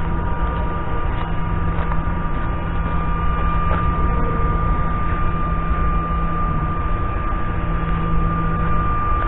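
Wind rumbling steadily on the microphone over a constant mechanical hum that holds two steady tones, one low and one high.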